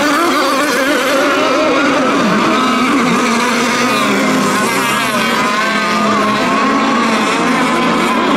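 Several radio-controlled racing boats' engines running at high revs during laps, their overlapping pitches wavering up and down as they throttle and turn.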